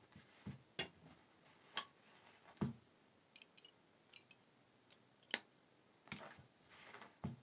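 Small metal jewelry-making tools clicking and tapping as brass wire, chain and pearls are handled, in a dozen or so irregular sharp clicks.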